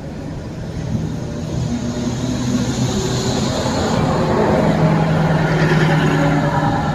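A DEMU (diesel-electric multiple unit) train pulling out of a station, its coaches rolling past close by with a steady low hum and the rumble of wheels on rail. The sound grows louder as the louvred diesel power car comes alongside.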